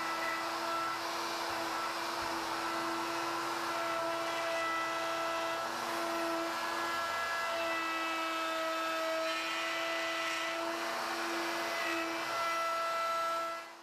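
Porter-Cable plunge router with a pattern bit running at speed, cutting a notch in wood as it follows a plywood template; a steady whine.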